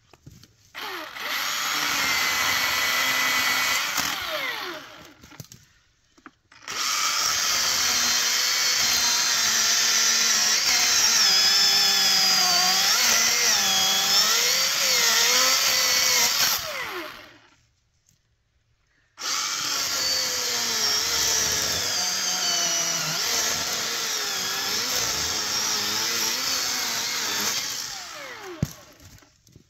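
Milwaukee M18 Fuel cordless chainsaw running and cutting into alligator juniper in three bursts: a short one, then two of about ten seconds each. The electric motor's whine wavers in pitch as the chain loads up in the cut.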